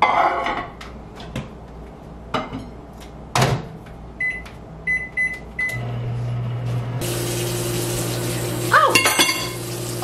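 Countertop microwave oven: its door is shut with a few knocks, four short keypad beeps sound, and then the oven starts with a steady hum as it heats a plate of food. About seven seconds in, a kitchen tap starts running with an even hiss, and a short clatter with squeaks comes near the end.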